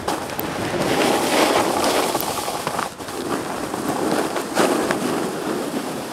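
Snowboard riding fast through fresh powder: a dense, crackly rush of board on snow mixed with wind over the microphone, dipping briefly about three seconds in.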